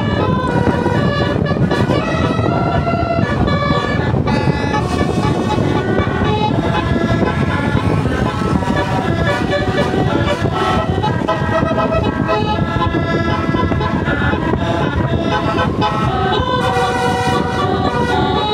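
A bus's telolet basuri horn, a multi-tone musical air horn, playing a tune of short stepped notes, several pitches at once, over a steady low rumble.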